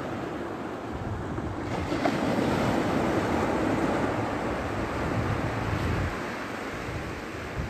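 Small waves breaking and washing up the shore, with wind buffeting the phone's microphone. The surf swells louder about two seconds in and eases off again after about six.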